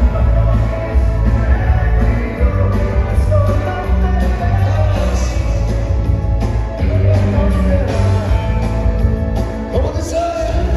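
Loud dance music played over a sound system, with a heavy bass line and a singing voice carrying the melody.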